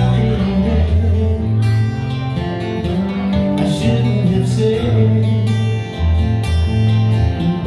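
A small band playing live: an electric bass playing a low line under acoustic guitar and keyboard.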